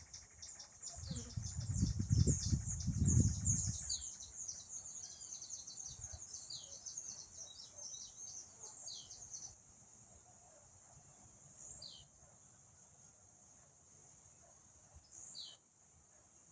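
Countryside birdsong over a steady high insect buzz: many quick high chirps at first, thinning after about nine seconds to a single falling chirp every three or four seconds. Low rumbling bursts sound in the first few seconds.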